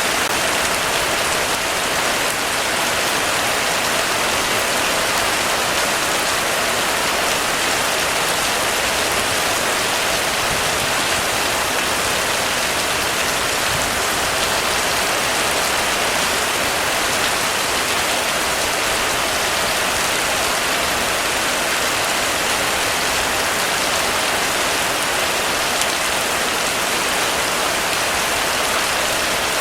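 Heavy rain falling on a roof, a dense, steady hiss that does not let up or change.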